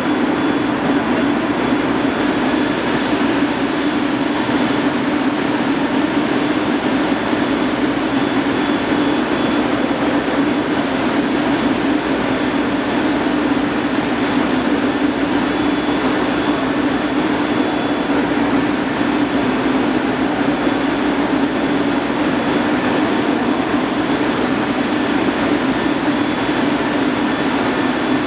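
Blown-film extrusion line running: a loud, steady industrial drone of its machinery with a strong low hum and a few faint high whines.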